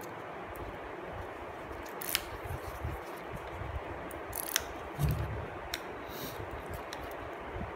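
Sharp plastic clicks, three of them a second or two apart, with light handling rustle, from Sony MDR-ZX110A headphones being turned and their headband and earcups adjusted in the hands, over a steady hiss.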